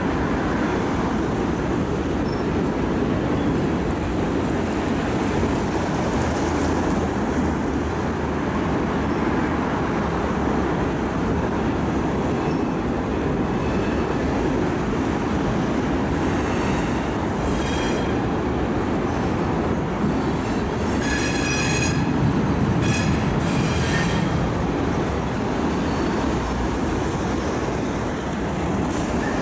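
Railcars rolling past with steady wheel-on-rail noise. Wheels squeal in several high, shrill tones for a few seconds past the middle.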